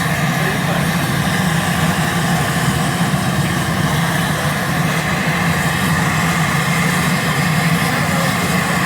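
A steady, even low drone with a hiss over it, running without a break.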